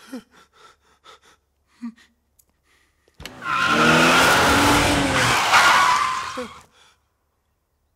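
Car engine revving hard with tyres spinning and squealing, starting suddenly about three seconds in and cutting off sharply after about three and a half seconds. Before it, a man's faint panting.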